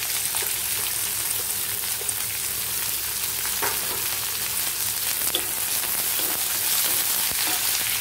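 Chopped onions and green chillies sizzling steadily in hot oil in a pan, with a few faint clicks.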